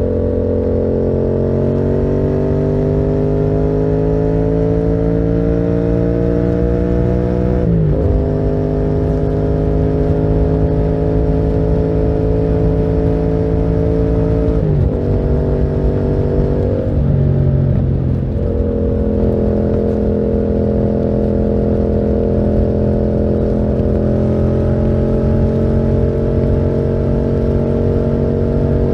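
Yamaha MT-07's 689 cc parallel-twin engine, breathing through a Termignoni exhaust, pulling under way with its pitch rising slowly. The pitch breaks and drops briefly about eight seconds in, about halfway and about two-thirds through, like gear changes, then holds fairly steady.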